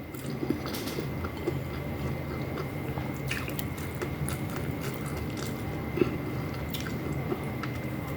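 Close-miked chewing and small wet mouth clicks of a person eating paksiw na tulingan (tuna stewed in vinegar) with rice. Underneath is a steady low hum and a faint high whine.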